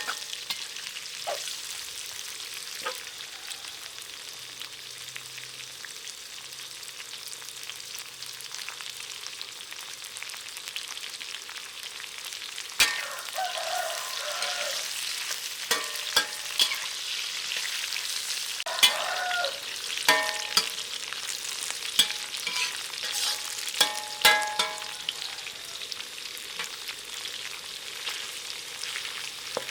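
Chicken and lemongrass sizzling as they stir-fry in a pan, with a spatula scraping and clacking against the pan. The scraping strikes come more often from about halfway through.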